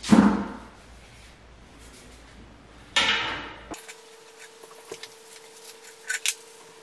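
A bare mountain-bike rim being handled: a knock with a short ringing tail at the start, another about three seconds in, then a few light clicks.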